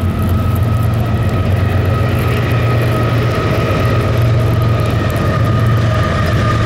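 CSX diesel freight locomotives passing close under power: a heavy, steady low engine rumble with a steady high-pitched whine over it.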